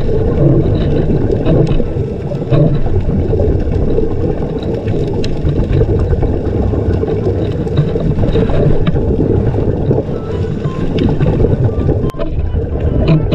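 Steady muffled underwater rumble of water moving past a waterproof camera housing, with a few faint scattered clicks.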